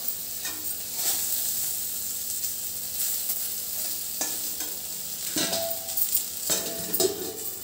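Eggplant pieces sizzling in oil in a kadai, with a metal spatula scraping and knocking against the pan several times as they are stirred; the loudest scrapes come near the end.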